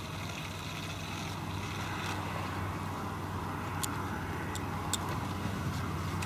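Steady low hum of a motor vehicle engine with a haze of road noise, and a few short light ticks about four and five seconds in.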